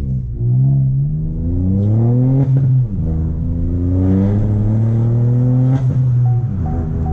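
Chevrolet Onix 1.0 turbo three-cylinder engine with a downpipe and sport exhaust accelerating hard. The revs rise through one gear, drop at a shift about 3 s in, climb again and drop at a second shift about 6 s in with a sharp crack, then run steady.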